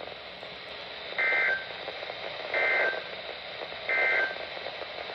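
Emergency Alert System end-of-message signal over weather radio: three short, identical two-tone data bursts about a second apart, heard over steady radio hiss. These bursts mark the end of the alert broadcast.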